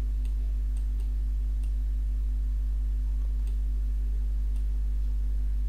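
Steady low electrical hum on the recording, with a faint higher steady tone and a few faint scattered clicks.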